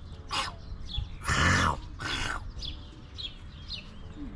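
Small birds chirping over and over in short high notes, with a few louder, rougher bursts near the start and around the middle.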